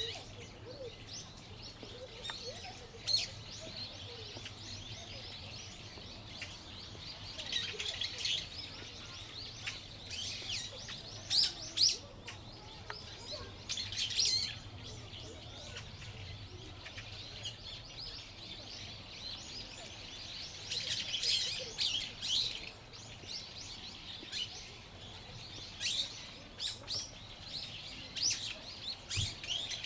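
Small birds chirping and twittering outdoors in repeated clusters of short, high calls, over a faint steady low background hum.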